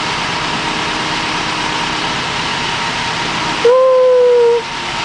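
Backhoe's engine running steadily. About four seconds in, a single held tone, falling slightly, sounds for under a second, louder than the engine.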